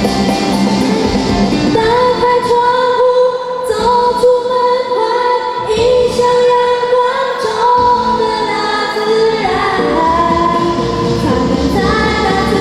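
Pop-style song with female voices singing long held notes over a backing track; the vocal line comes in about two seconds in, after a short instrumental stretch.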